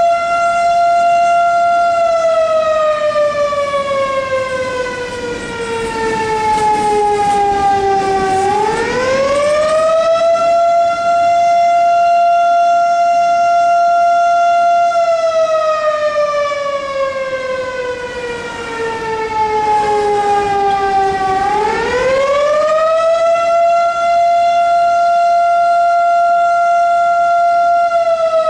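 Siren sounding a slow wail: its pitch holds steady, slides slowly down over several seconds, then sweeps quickly back up, twice, about every thirteen seconds.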